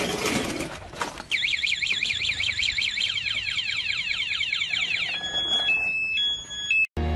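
An electric scooter's anti-theft alarm set off by the scooter being knocked over. After about a second of rough noise it gives a fast warbling siren, about five sweeps a second, then switches to alternating beeps on two pitches that cut off near the end.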